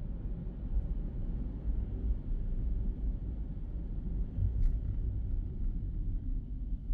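Car driving, heard from inside the cabin: a steady low rumble of road and engine noise, with one short click about four and a half seconds in.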